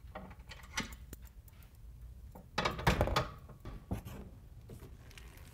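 Metal clicks, rattles and knocks from handling the cable-tethered release pin on the swing-away mount of a Thule Terrapin hitch-mount cargo box. The loudest clatter comes about three seconds in, with a sharper knock just after.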